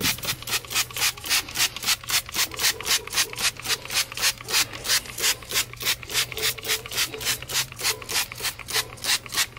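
Trigger spray bottle of wheel cleaner pumped rapidly onto a car wheel: short hissing spurts, about four or five a second.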